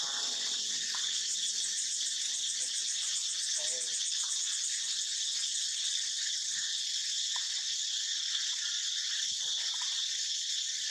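Steady high-pitched drone of an insect chorus.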